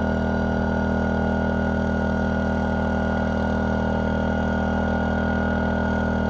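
DuroMax XP2000is inverter generator's small engine running steadily under a heavy 1500-watt load, near its capacity, heard from the exhaust side. The pitch and level hold constant.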